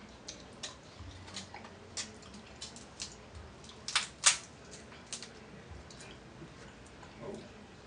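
Crab leg shells cracking and snapping as they are broken open by hand and with scissors: irregular sharp cracks and clicks, the two loudest close together about four seconds in.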